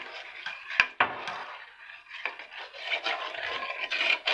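Spoon stirring in a cooking pot, scraping and clinking against the metal, with two sharp clinks near the start, as milk is mixed into the roasted gram flour (besan) and water.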